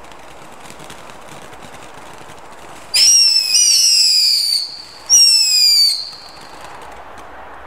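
Panta 'Killer Bees' fountain firework burning with a steady hiss of spraying sparks, then two loud shrill whistles, about three and five seconds in, each sliding slightly down in pitch; the first lasts about a second and a half, the second under a second.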